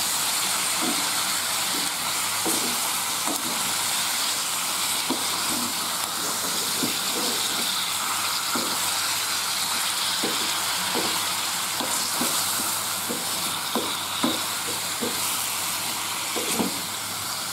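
Sliced bitter melon sizzling in hot oil as it is stir-fried, with a wooden spatula repeatedly scraping and knocking against the pan.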